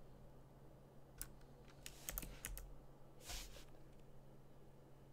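Faint, scattered keystrokes on a computer keyboard, a few separate clicks and a short flurry, over a low steady hum.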